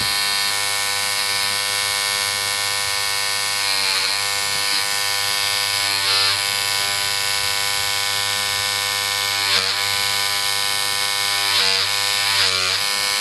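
Dragonfly X2 rotary tattoo machine running at 9 volts with a steady electric buzz, its give adjustment set at two full turns. The pitch dips briefly several times.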